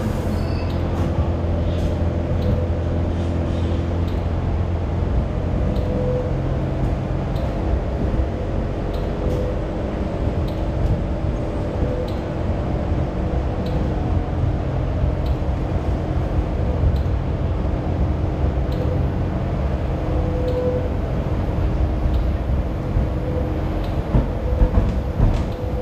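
Kawasaki light rail train running along the track, heard from inside the trailer car: a steady low rumble of wheels on rail. A low hum drops away about four seconds in, and a few sharp clicks come near the end.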